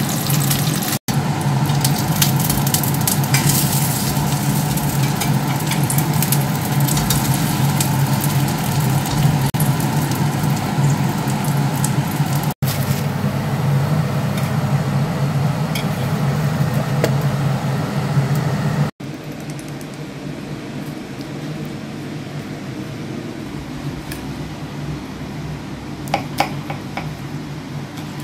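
Pancakes sizzling as they fry in oil in a cast-iron pan: a steady hiss over a low hum. Near the end, after it quietens, come a few clinks of a knife and fork on a plate.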